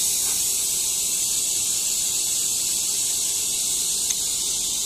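Steady high-pitched hiss with one faint click about four seconds in.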